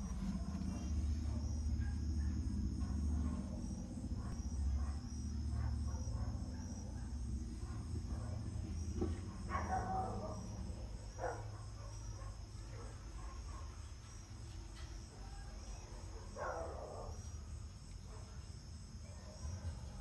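Crickets chirping in a steady, evenly pulsed high trill over a low rumble, with a few short scratchy noises about halfway through and again later.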